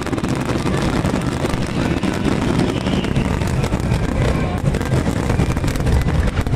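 Fireworks display: a steady run of sharp crackles over a continuous low rumble of bursts.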